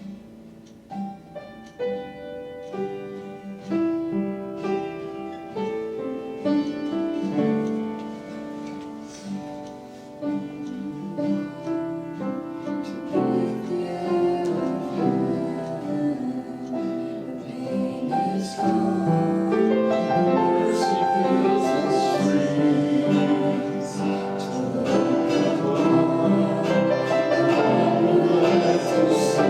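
Worship music led by a piano or keyboard, playing on after the chorus with little or no clear sung words. It swells, growing fuller and louder over the second half.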